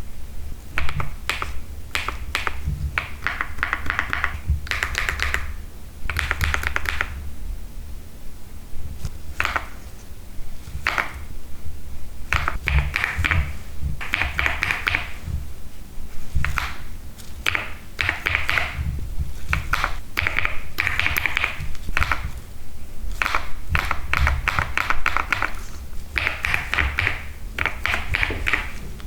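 Typing on an Epomaker TH99 mechanical keyboard: quick runs of keystroke clicks in bursts of a second or two, with short pauses between them.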